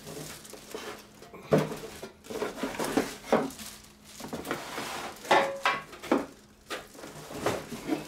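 Plastic wrapping rustling and cardboard box scraping as a plastic-wrapped toaster oven and its parts are lifted out of the box, with several sharp knocks and clatters of the parts against the box and table.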